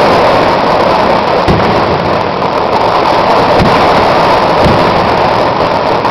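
Vedikkettu fireworks barrage: massed firecrackers going off so fast that they merge into one continuous din, with a few heavier booms standing out. The sound is loud enough to overload the microphone.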